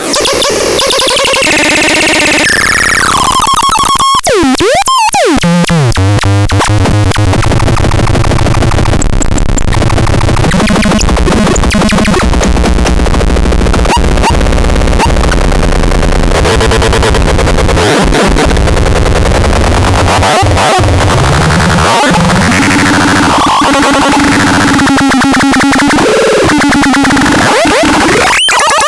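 Loud, harsh electronic noise music from a synthesizer-type sound device: dense glitchy stuttering with swooping pitch sweeps about four to five seconds in. From about six seconds a deep steady bass drone runs underneath.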